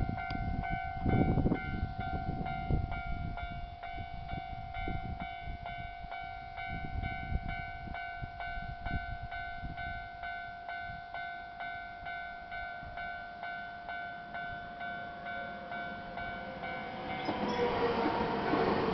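Japanese level-crossing warning bell ringing in a steady, even ding-ding rhythm, with low rumbling under it at the start. In the last couple of seconds an approaching Nankai electric train grows louder over the bell.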